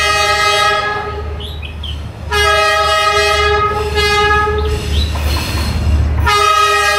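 Train horn blowing three times: a short blast, a longer one of about two and a half seconds, and a third starting near the end, over a steady low rumble from the passing train.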